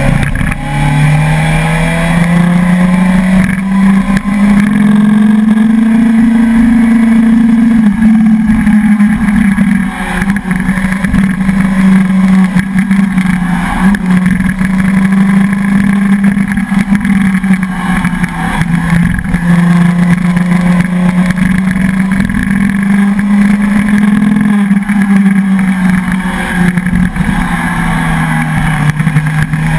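Suzuki sport motorcycle's engine pulling steadily uphill, heard from on board with wind rushing over the microphone. The engine note climbs over the first few seconds, holds fairly steady with small dips, and drops near the end.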